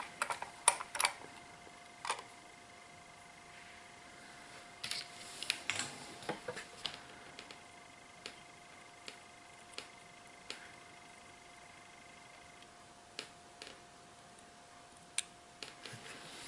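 Light metallic clicks and clacks from a small Mannesmann bench vise as its sliding T-handle is turned to close the jaws on the wires, followed by scattered single ticks of small tools being handled. Under them runs a faint, steady high whine.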